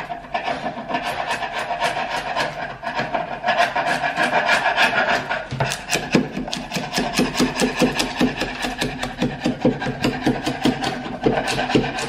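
Sharp steel chisel scraping paint off varnished hardwood door trim, the paint lifting cleanly off the varnish beneath. At first it is a long, continuous scrape with a ringing edge to it; from about halfway it turns into quick, short, repeated strokes, several a second.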